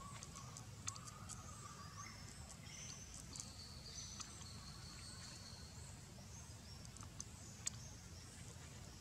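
Faint outdoor ambience: a low steady rumble under high-pitched animal calls that come and go. Two sharp clicks, about a second in and near the end.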